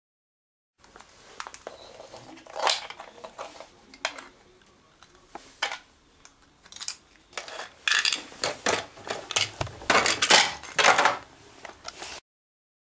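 Hard plastic toy figurines clattering and knocking as they are handled and set against a wooden floor. The sharp clicks and rustling come in irregular clusters and grow busiest near the end.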